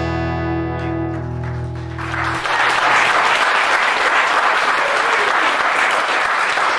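The last strummed chord of an acoustic guitar rings out and fades, then audience applause starts about two seconds in and carries on, louder than the chord.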